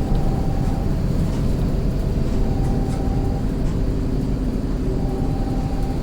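Mercedes-Benz OF-1721 BlueTec 5 bus under way: a steady low diesel and road rumble with a pitched whine from the differential that rises out of it three times, each time for about a second. The whining, growling differential is a sign of gear wear.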